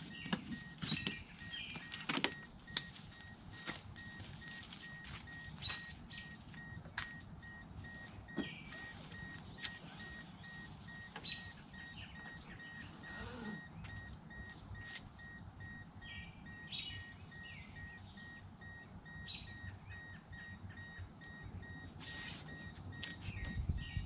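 Scattered clicks, knocks and rattles of a tie-down strap and its buckle being handled while a kayak is secured to a car's roof. Short high chirps come now and then over a faint steady high tone.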